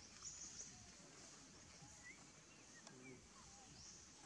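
Near silence: faint outdoor ambience, with a thin high insect buzz and a few soft short chirps around the middle.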